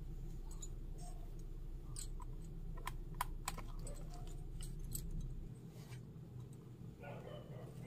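Light clicks and taps as small ingredients are dropped into a miniature plastic mixer-grinder jar and its lid is pressed on, over a low steady hum that drops away about two-thirds of the way through.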